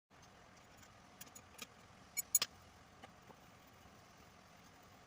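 A few light clicks and knocks over a faint steady background noise, the loudest a quick double knock a little past two seconds in.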